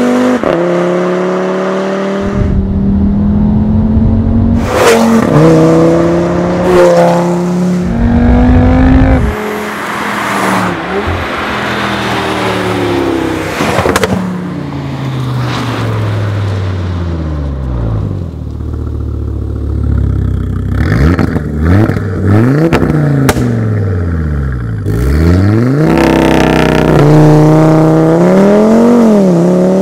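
Audi RS3 8V's turbocharged five-cylinder engine through a REMUS stainless cat-back sport exhaust. It accelerates hard with quick upshifts and sharp pops from the exhaust, and its revs then fall away for several seconds. After that it is revved up and down in a series of blips.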